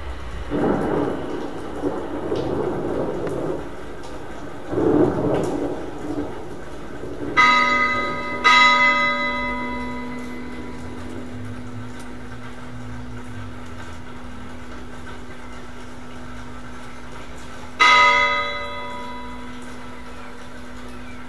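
Ambient music score: two swells of noise, then bell-like strikes that ring and die away, two about a second apart and a third much later, over a steady low drone that enters with the first strike.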